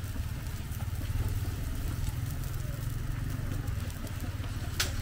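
A small engine running steadily with a low, even rumble, and a short sharp click near the end.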